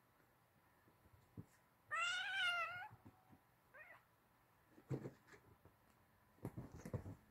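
Oriental kitten play-fighting, letting out one loud wavering meow of nearly a second, then a short fainter squeak; soft scuffling on the bedding near the end.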